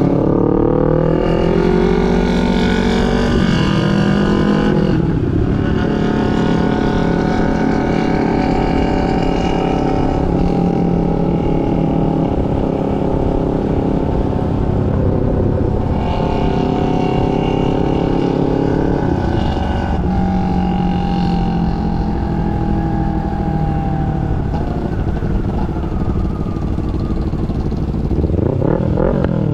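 250 cc parallel-twin sport motorcycle engine riding under way, climbing in pitch through the revs and dropping at several gear changes, with wind rushing over the microphone.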